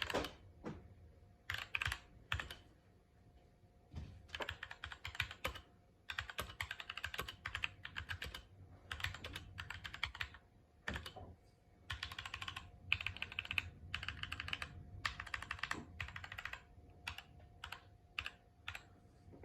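Typing on a GMMK mechanical keyboard with Gateron Clear linear switches: rapid runs of key clicks broken by short pauses.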